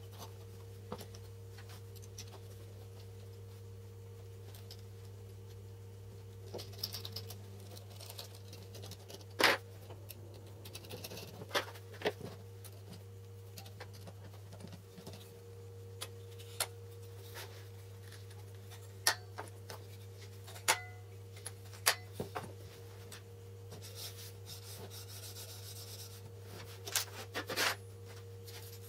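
Scattered clicks, taps and light scraping of small metal parts (threaded bolt, spring, nuts) and a hand tool being handled against a wooden knife-sharpening jig as its spring-loaded clamp is assembled and tightened, over a steady low hum.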